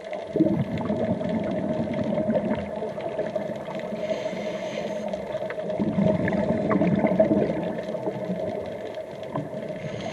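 Scuba diver breathing through a regulator underwater: two long bursts of exhaled bubbles about six seconds apart, each followed by a short hiss as the diver inhales.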